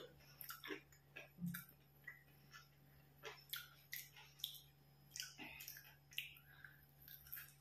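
Faint, irregular crunches of a person biting and chewing a crispy fried snack: capsicum pieces stuffed with potato masala and coated in semolina (rava).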